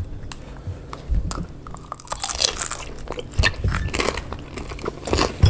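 Close-miked biting into and chewing gyoza dumplings: a run of short wet mouth clicks and smacks that gets busier about two seconds in.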